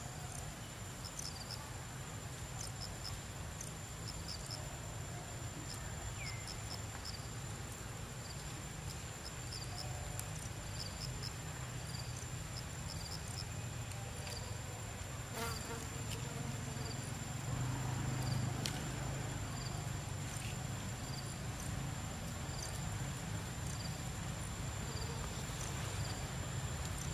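Insects chirping: short high chirps repeated about once a second over a steady high-pitched whine, with a low steady rumble underneath.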